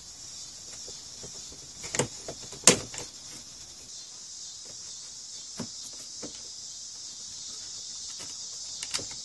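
Cicadas buzzing steadily in the background, with a few sharp plastic clicks and knocks as the headlight switch module is pried and pulled out of a Mk3 VW Jetta's dashboard; the loudest knock comes about two and a half seconds in.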